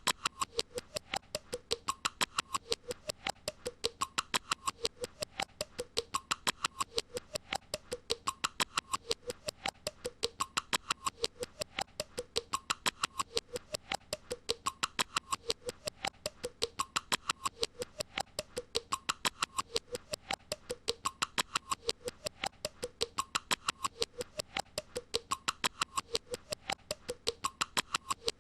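A short clicking sound played on a loop: rapid, even clicks, about five a second, over a faint rising-and-falling tone that repeats about every two seconds.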